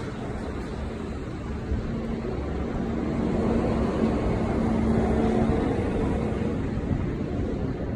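A passing vehicle's steady engine hum over a low outdoor rumble, growing louder about three seconds in and fading toward the end.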